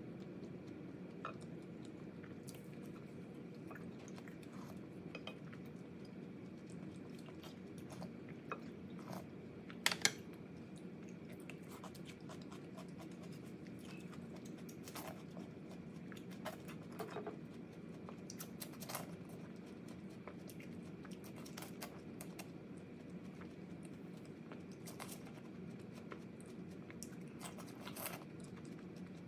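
Close-miked eating sounds of a person chewing food: scattered mouth clicks and smacks, the loudest a quick pair about ten seconds in, over a steady low background hum.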